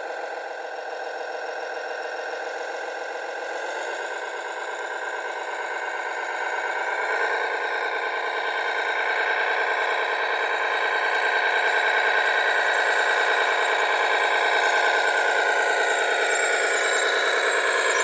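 Radio-controlled truck's simulated diesel engine sound from an onboard sound module. It steps up in pitch twice, about 4 and 7 seconds in, and grows louder as the truck drives off.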